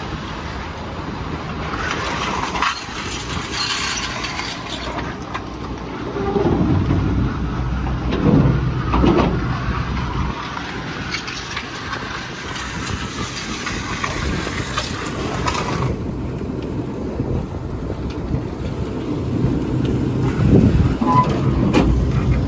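Tractor engine running steadily, with a low even hum.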